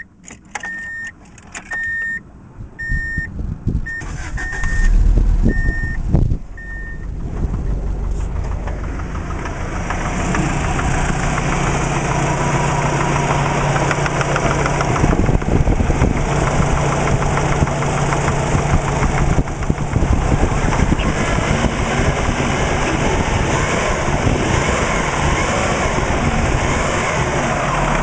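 Subaru WRX turbocharged flat-four engine being started: a row of short electronic chime beeps, then the engine catches about five seconds in and settles into a steady idle. The idle carries a knocking clatter, which the owner takes for piston slap.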